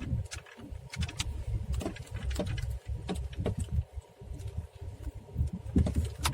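Skoda Rapid's worn-out front-left shock absorber knocking as the car rolls over a rough road in first gear: irregular dull thuds and sharper knocks over a low rumble from the car. The dull front-end knock over bumps is the sign of a shock absorber that no longer damps.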